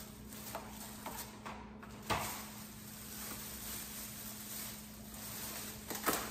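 Plastic shopping bag rustling and crinkling as items are rummaged out of it, with a soft knock about two seconds in and a click near the end as things are handled on the counter.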